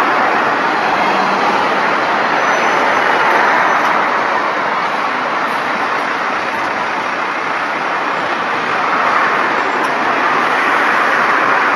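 Steady drone of road traffic and bus engines at a busy bus station, swelling slightly near the end.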